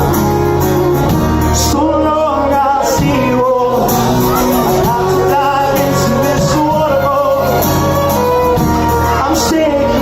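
Live band music from a small group, guitar-led, playing an instrumental passage of a song.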